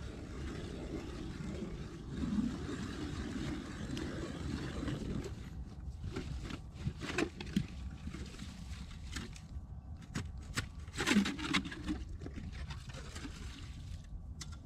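A hand ice auger cutting through river ice, heard from a distance as a faint scraping with a few louder crunches about seven and eleven seconds in, over a steady wind rumble on the microphone.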